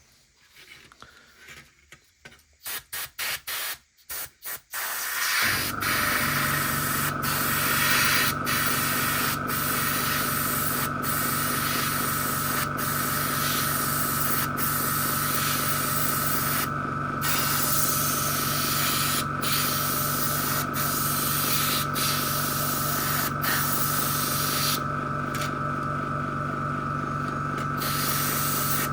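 Airbrush spraying black paint from a compressor: a few short puffs of air, then from about five seconds in a steady hiss of spraying over the compressor's steady hum, the hiss stopping briefly now and then as the trigger is released, for a few seconds near the end.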